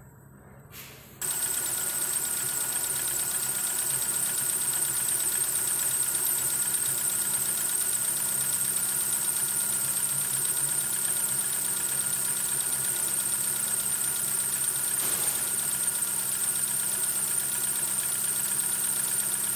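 Daewoo Lanos 1.3i A13DM inline four-cylinder petrol engine idling steadily at about 1000 rpm. It is faint for the first second, then loud and close from about a second in.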